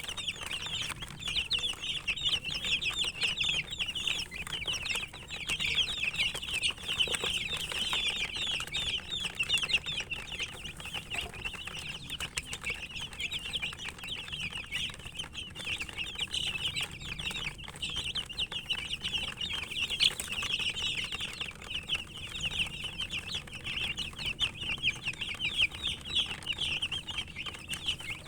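A brood of domestic chicken chicks peeping continuously, many short high-pitched cheeps overlapping at once.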